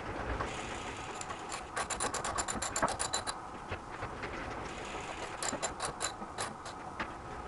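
Socket ratchet wrench clicking in quick runs on a bicycle crank-arm bolt, about ten clicks a second. There are two runs, a couple of seconds in and again near the end.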